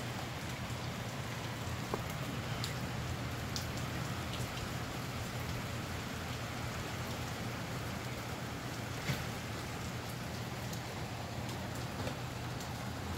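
Steady rain falling: an even hiss with scattered drops ticking, a louder tick about two seconds in and another past the middle.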